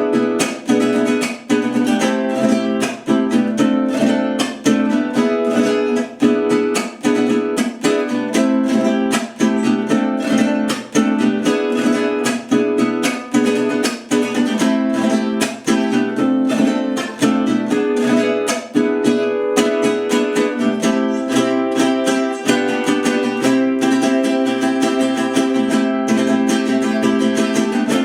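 Mexican mariachi vihuela with a bocote body and German spruce top, strummed in a fast, steady rhythm. The chords sit high and bright, with almost no bass.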